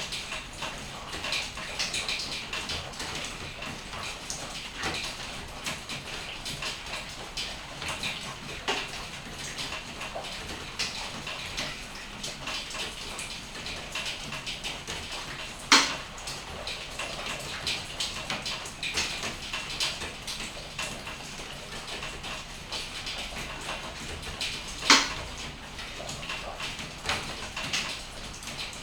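Rain falling steadily, with many small drips. A few single drops land much louder on something hard: two sharp knocks, one a little past halfway and one near the end.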